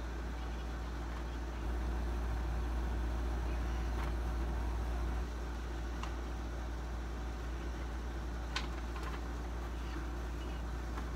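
A steady low hum, louder for a few seconds starting about two seconds in, with a few faint ticks and one sharper tick after about eight and a half seconds.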